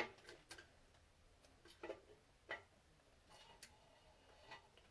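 Faint, scattered clicks and taps of hand tools and parts being handled on a Subaru FA20 engine block on an engine stand during teardown, about half a dozen at uneven intervals, the sharpest right at the start.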